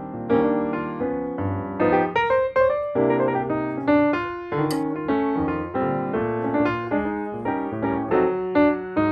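Background piano music: a calm melody of notes struck and left to fade, a new note or chord every half second or so.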